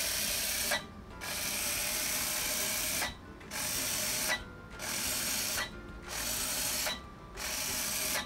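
Bee-Bot floor robot's small geared drive motor whirring as it carries out a programmed sequence of moves. The whirr comes in six runs of about a second each, with a short pause between steps.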